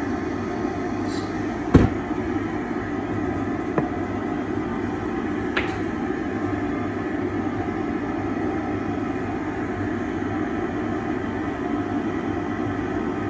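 Steady whir of a dental lab bench dust-extraction hood running, with a sharp click about two seconds in and two fainter clicks a few seconds later.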